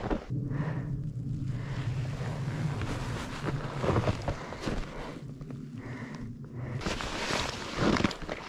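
Footsteps crunching in snow while walking, with wind noise on the microphone. A low steady hum runs under most of it, and the steps grow louder near the end.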